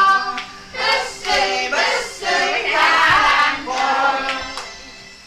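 Several women's voices singing loudly together, with hand claps. The singing dies away about four and a half seconds in.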